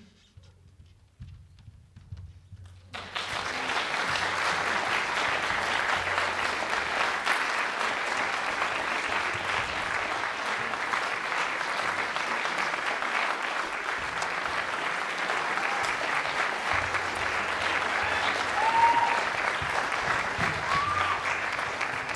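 Audience applauding. The clapping breaks out suddenly about three seconds in after near quiet and then goes on steadily, with a few short high calls over it near the end.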